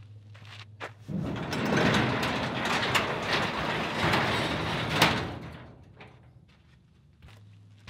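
Garage door pushed up by hand: a rattling, rolling noise for about four seconds, ending in a sharp clank about five seconds in, then fading.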